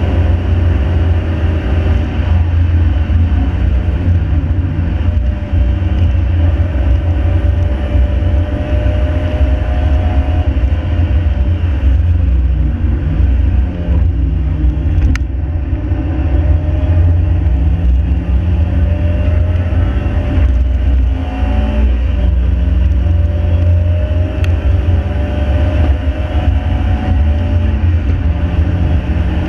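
Ford 1.7 Puma four-cylinder engine in a Mk5 Fiesta driven hard, its note rising and falling with the throttle. The pitch drops sharply and climbs again about five seconds in and again near thirteen seconds, then shifts again a few times later on. A heavy, steady rumble of road and wind noise runs underneath.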